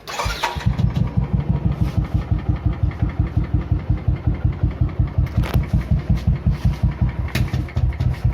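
Royal Enfield Classic 350's single-cylinder engine, with its stock air filter fitted, catching at the start and settling straight into a steady idle of even low thumps, about five a second.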